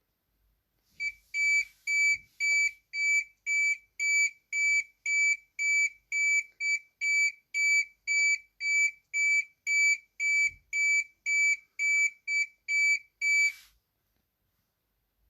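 Emergency alert alarm beeping: a single high electronic tone repeated about twice a second for some twelve seconds, stopping shortly before the end.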